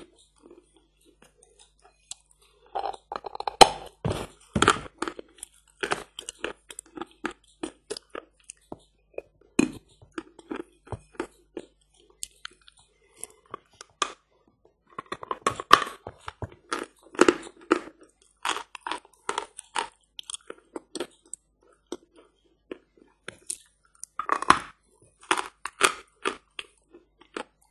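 Close-miked crunching of teeth biting into a lump of hard 'Badger' chalk, then chewing it: sharp crackling clicks in several dense clusters, with scattered single crunches between them.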